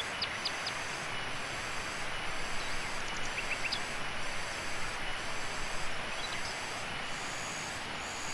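Steady high-pitched insect chorus, a hiss that pulses about once a second, with a few short high chirps here and there.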